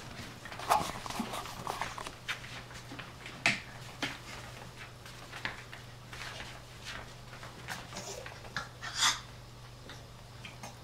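Havanese and Kooikerhondje puppy play-fighting on a woven rag rug: irregular scuffling of paws and bodies with short dog play noises. There is a sharp sound about three and a half seconds in and a louder burst about nine seconds in.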